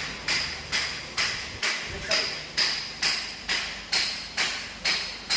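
A sharp, even tick repeating about twice a second, each with a brief bright ring.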